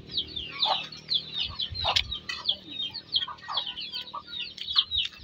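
Chickens peeping and clucking: a continuous run of short, high, falling chirps, several a second, with a sharp click about two seconds in.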